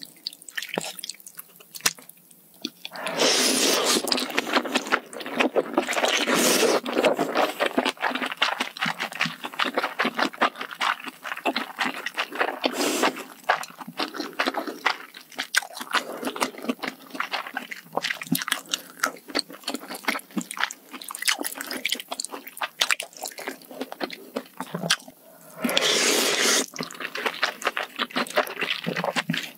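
Close-miked eating of spicy malatang hot pot: wet chewing and smacking, with several longer, louder slurps of noodles and broth and the clink and scrape of chopsticks and a wooden spoon.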